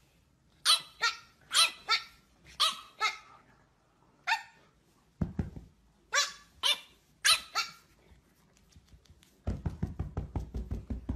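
Dog barking in short, high-pitched barks, about eleven of them, often in quick pairs. Over the last second or so comes a rapid low rattle.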